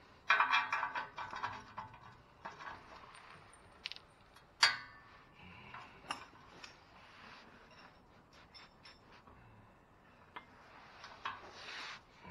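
Hand ratchet clicking in quick runs as a socket is worked on a catalytic converter mounting bolt, with metal clinks of the socket and extension. There is one sharp metallic clack about four and a half seconds in, and another run of clicking near the end.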